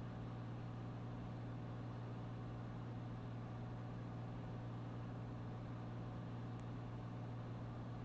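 Steady in-flight drone of a Cirrus SR22 G3's six-cylinder Continental engine and propeller, heard in the cabin, with an even low hum that doesn't change.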